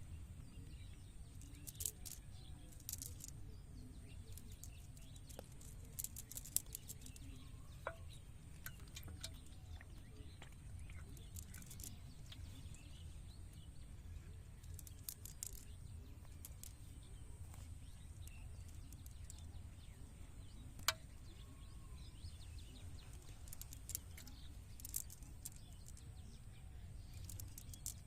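Faint outdoor ambience: a steady low rumble with a thin high whine, and scattered small clicks and ticks, one sharper click about two-thirds of the way through.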